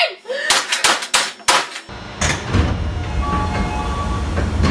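Several sharp knocks in quick succession. About two seconds in, a steady low rumbling noise starts and keeps going, with faint steady tones above it.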